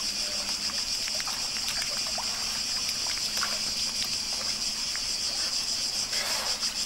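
Steady high-pitched drone of cicadas, with light splashing and dripping water from a small child paddling and climbing out of a swimming pool.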